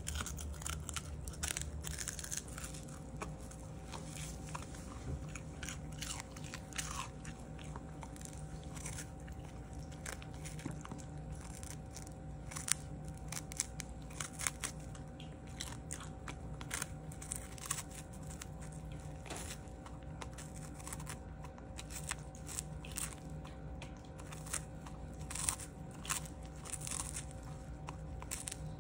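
Long-haired dachshund biting and chewing a whole capelin held out by hand: a run of irregular crisp crunches and wet chewing. A faint steady hum runs underneath.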